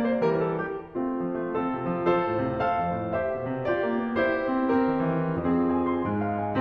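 Background piano music, several notes sounding together, with a brief dip in level just before a second in.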